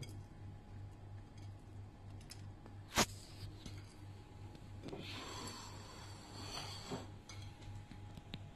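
Faint rustling and light taps of corn kernels being sprinkled by hand onto a pizza in a metal pan lined with baking paper, with one sharp click about three seconds in and a longer rustle from about five to seven seconds. A low pulsing hum runs underneath.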